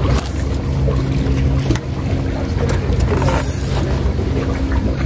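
Low, steady drone of a boat engine running, with wind noise on the microphone and a few light clicks.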